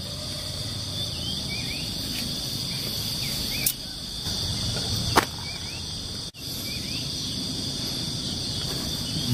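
A steady, high-pitched chorus of crickets or other insects, with short rising chirps over it. Two sharp clicks come in the middle, and the sound drops out for an instant about six seconds in.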